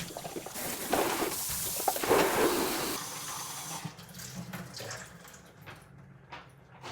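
Water running and splashing, loudest for about two seconds near the start, then dropping to a quieter trickle with a few light knocks.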